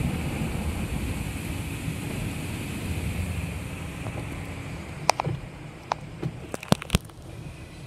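Automatic car wash tunnel heard from inside the car: a steady wash of water spray and cloth brushes on the body, rumbling and slowly fading. From about five seconds in, a handful of sharp ticks and taps break through.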